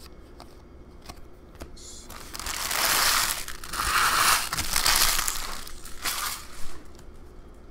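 Empty trading-card packaging crumpled and crushed by hand, in several loud crackling surges that start about two seconds in and stop near the end.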